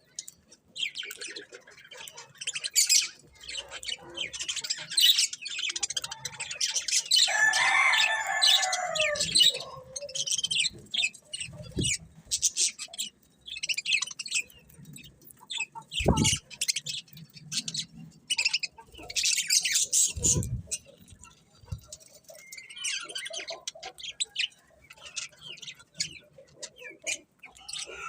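Pet budgerigars chirping and chattering: a steady run of quick high chirps, with a longer, louder warbling call about seven seconds in. A few dull low thumps sound in the middle.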